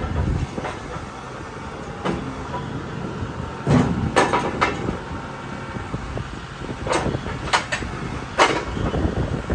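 A motor running with a low rumble, with several sharp knocks and clunks of wood or metal, the loudest about four seconds in and again near the end.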